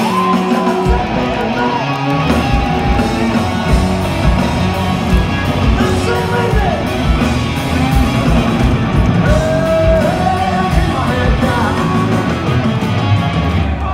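Hard rock band playing live: electric guitars, bass and a singer, with the kick drum coming in about a second in and keeping a steady beat. Recorded from inside the crowd in a large hall.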